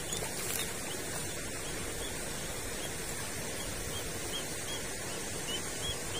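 Night-time outdoor chorus of chirping animals: short high chirps repeating irregularly, about one or two a second, over a steady hiss.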